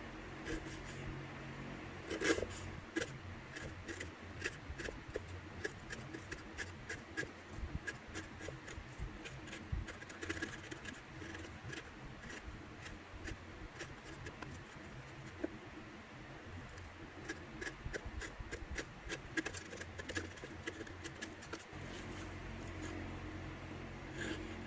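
Hand chisel paring the wall of a sliding dovetail mortise: irregular small clicks and scraping slices of steel through wood, with one sharper knock about two seconds in.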